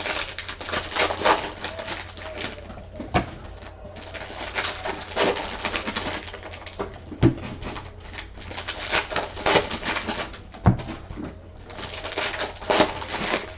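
Crinkling and rustling of plastic wrap and foil trading-card packs as sealed card boxes are unwrapped and opened by hand, with three sharp knocks as packs or boxes are set down on the table.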